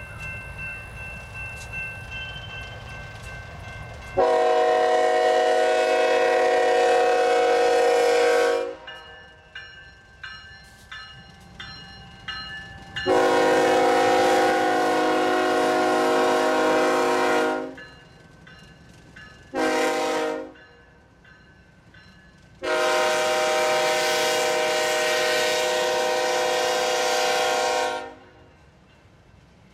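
BNSF ES44DC diesel locomotive's air horn sounding the grade-crossing signal: two long blasts, one short, then a final long blast, each a chord of several steady tones. A low engine rumble comes before the first blast, and the ballast hopper cars roll past more quietly after the last.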